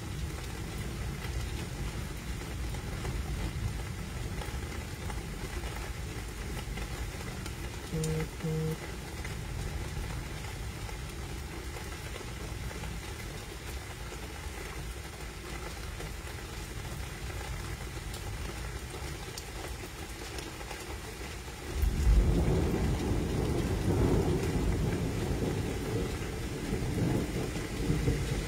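Steady rain and storm noise during a night thunderstorm, with two short beeps about eight seconds in. About 22 seconds in, a louder roll of thunder rises suddenly and rumbles on.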